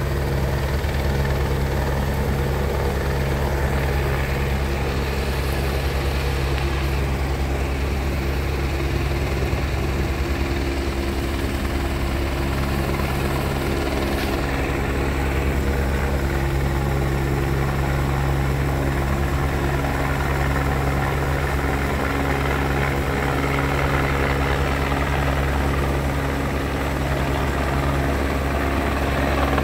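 Helicopter overhead, its rotor and engine running at a steady level throughout, while it works a longline pickup.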